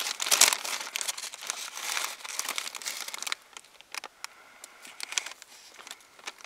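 Paper wrapping crinkling and rustling as a pasticciotto pastry is handled and broken in two. The dense crackling thins out to a few scattered clicks about three seconds in.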